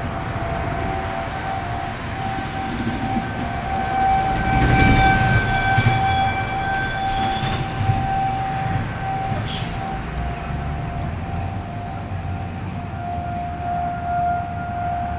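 Federal Signal 2001-130 rotating electromechanical outdoor warning siren sounding a steady single-tone wail, its volume swelling and fading as the horn turns. Traffic rumble sits underneath and is loudest about four to six seconds in.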